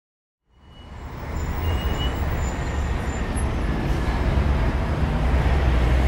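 Steady low rumbling noise that fades in about half a second in and holds, with a few faint thin whistles above it.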